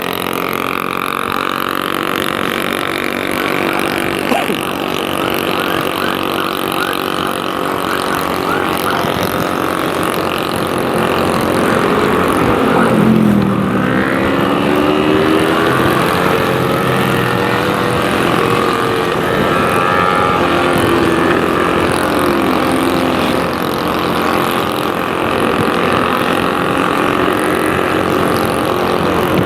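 Motorcycle engine running with road and wind noise during a ride. A wavering tone glides up and down from about twelve seconds in until roughly three-quarters of the way through.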